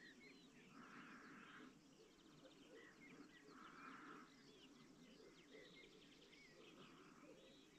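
Faint songbirds chirping and twittering in short, quick notes throughout, with three short hissy patches of noise about three seconds apart.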